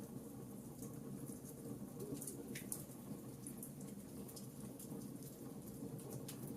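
Fireplace fire crackling: a steady low rush of flames with frequent small, quick pops, one a little louder about two and a half seconds in.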